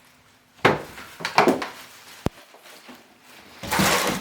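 Cardboard box and packaging rustling and scraping as a wet/dry vacuum cleaner's main unit is lifted out, in several short bursts with one sharp click about halfway and a longer rustle near the end.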